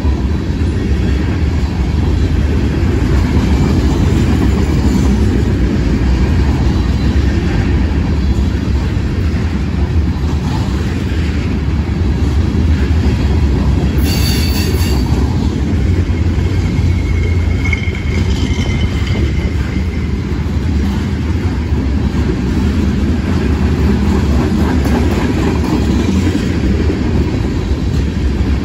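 Freight train's tank cars and covered hoppers rolling past: a steady rumble of steel wheels on rail, with a brief high wheel squeal about halfway through and a fainter squeal a few seconds later.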